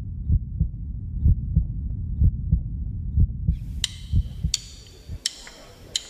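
Heartbeat sound effect: low thumps in lub-dub pairs about once a second, fading out a little past halfway. They are followed by a few bright ringing hits spaced about two-thirds of a second apart.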